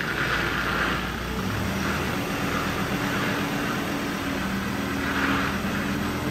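Ford Ranger's 3.2-litre five-cylinder turbo-diesel idling as the lifted ute creeps backward onto a chassis dyno, with a steady rushing noise over the low engine hum.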